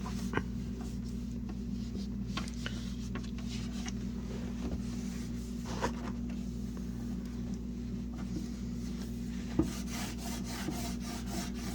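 Microfiber cleaning cloth scrubbing grime off the inside of an old fridge: irregular rubbing and scraping with scattered small knocks, coming thicker near the end. A steady low hum runs underneath.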